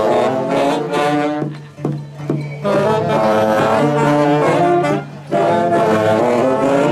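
Huaconada dance tune played by an ensemble of wind instruments. Several instruments hold notes together in harmony, in phrases with short breaks between them.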